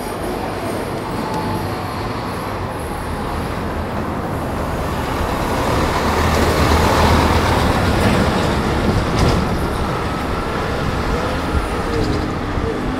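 A double-decker bus passing close by, its engine and tyre noise swelling to a low rumble in the middle and then easing, over steady town traffic.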